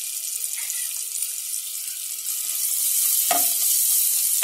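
Grated garlic sizzling in melted butter in a pan, the sizzle growing louder a little past halfway. A spoon knocks once against the pan near the end as the garlic is stirred.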